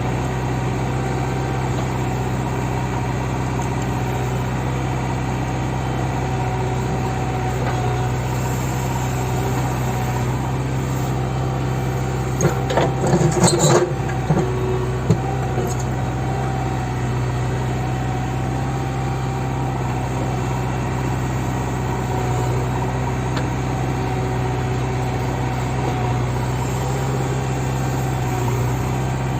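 JCB backhoe loader's diesel engine running steadily. About halfway through, a short burst of metallic knocks and rattles.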